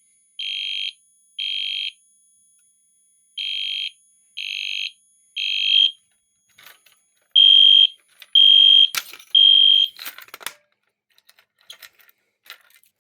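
Edwards (EST) fire alarm sounding the temporal-three evacuation pattern: high, steady beeps in groups of three with a pause between each group, the last group loudest. It stops about ten seconds in, followed by a few scattered clicks and rattles.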